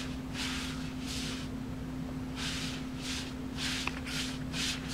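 A hand brushing over a reversible sequin patch on a sweater, flipping the sequins: about six short swishes, coming quicker near the end, over a steady low hum.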